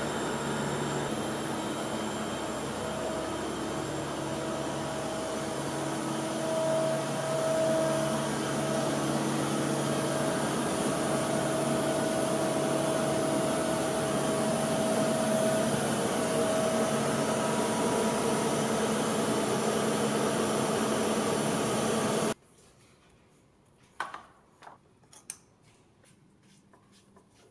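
Mazak Integrex CNC mill-turn lathe powered up, with a steady mechanical hum and a faint held whine. The hum cuts off abruptly about 22 seconds in, and a few light clicks and knocks follow as a cable connector on the milling spindle motor is handled.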